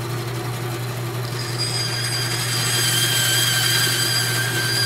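A motor-driven machine running steadily, like a power tool or small machine tool. It gives a low hum, and a high whine comes in about a second and a half in and grows stronger.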